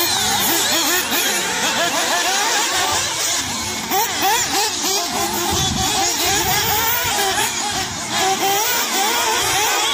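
Several nitro-powered 1/8-scale RC buggy engines revving up and down during a race, their high-pitched whines overlapping and constantly rising and falling in pitch.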